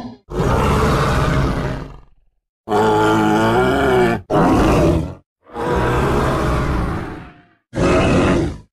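A 1930s film sound effect of a monster roar, voicing the Styracosaurus: five separate roars in a row, each one to two seconds long and cut off into silence.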